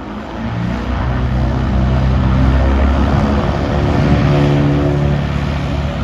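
Cirrus SR22's six-cylinder piston engine and propeller, the throttle opened about half a second in so the engine note rises and grows louder, then holds steady at the higher power.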